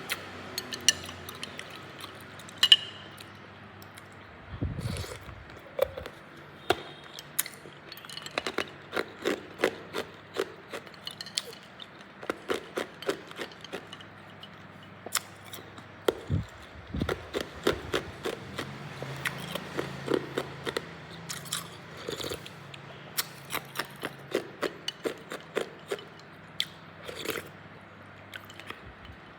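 Hard cube ice being bitten and crunched between the teeth: many sharp cracks in quick runs, with short pauses between mouthfuls.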